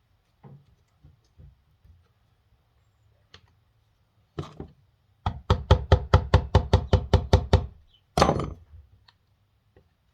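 Hammer blows on the casing of a tractor's front final drive being split apart: one hit, then a quick run of about a dozen knocks at roughly five a second, then one heavier blow.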